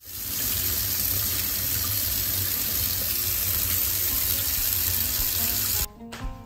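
Tap water running hard into a stainless steel sink and over rice being rinsed by hand in a plastic washing bowl, a steady rush that cuts off suddenly near the end. Soft background music follows.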